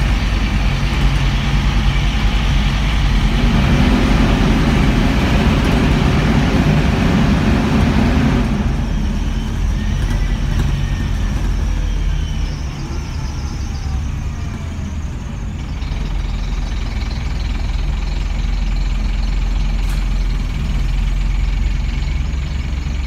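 Scania N230UB bus heard from inside the saloon: engine and cooling fan running loud, with a broad rushing noise that drops away suddenly about eight seconds in, leaving a lower, steadier running sound with a few faint falling whines. The fan runs roaring because of a broken cooling fan sensor.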